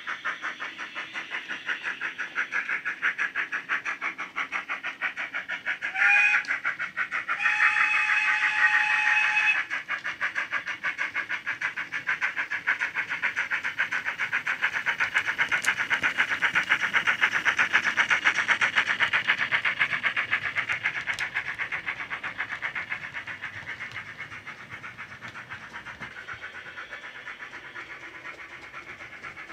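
DCC sound decoder running a GWR 42XX/52XX 2-8-0 tank engine steam sound file through a small tablet speaker in the model: rapid, even exhaust chuffs throughout, with a short whistle blast about six seconds in and a longer one shortly after. The chuffing grows louder toward the middle and fades toward the end as the model passes.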